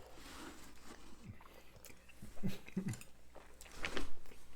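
Close-miked chewing and biting of crispy funnel cake, with soft wet mouth sounds. A louder bite or clatter comes near the end.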